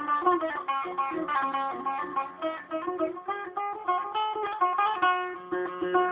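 A newly built setar, with an old Iranian mulberry soundboard and a large zebrawood bowl, played solo as a test of its sound: a quick melodic run of plucked notes over a recurring lower note. Recorded on a mobile phone, so it lacks the highest overtones.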